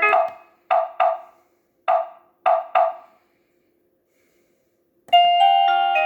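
Doorbell speaker built into an ANTOP AT-216BD TV antenna, cycling through its melodies. A short tune of six quick knocking notes plays, then after about two seconds of silence a chiming tune of ringing notes starts about five seconds in.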